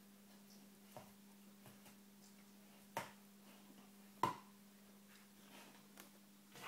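Alaskan Malamute hiccuping: a few short, sharp hics at uneven gaps of one to two seconds, the loudest a little past the middle.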